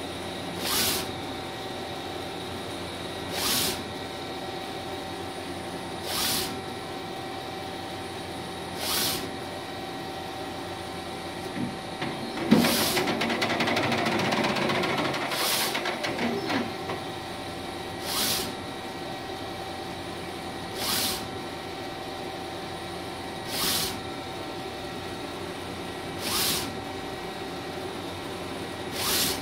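Mimaki 3042 HG UV-LED flatbed printer printing: a steady hum with one steady tone, and a whoosh each time the print-head carriage sweeps across, about every two and a half to three seconds. About twelve seconds in, a louder whirring run with rapid ticking lasts some four seconds before the regular passes resume.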